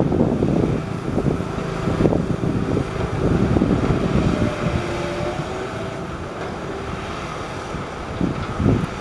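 Heavy diesel machinery running with a low rumble, wind buffeting the microphone; a faint whine wavers in pitch through the middle.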